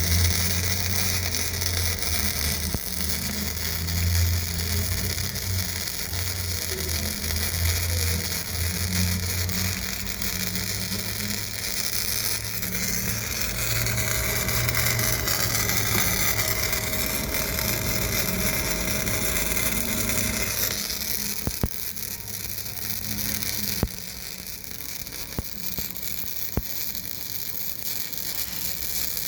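MIG welding arc from a VOL-MIG160LED inverter welder burning wire: a steady crackling hiss with an uneven low buzz. It grows quieter for the last few seconds.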